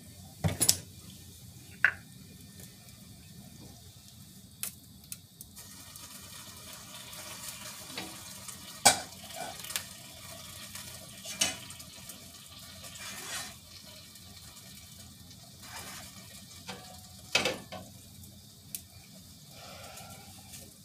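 Kitchen clatter while cooking: pots, pans and utensils knock and clink at scattered moments, the loudest about nine seconds in, over a faint steady hum.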